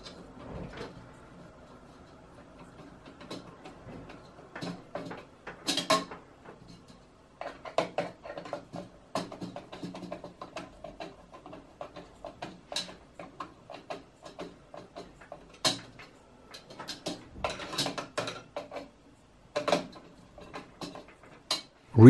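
Screwdriver turning the Noctua NH-D15 cooler's two mounting screws down between the heatsink towers: scattered metallic clicks, clinks and scrapes of the tool against the screws and mounting bracket, a few louder than the rest.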